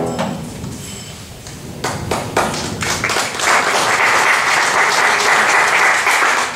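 Audience applauding at the end of a piano piece. The piano's last notes die away at the start, a few scattered claps come in about two seconds later, and the applause fills in from about three seconds in.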